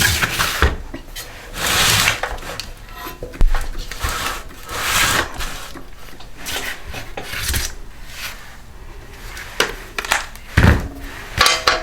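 Hand tools and engine parts being handled on a workbench: a string of scrapes, rubs and clattering knocks, with a sharp knock about three and a half seconds in.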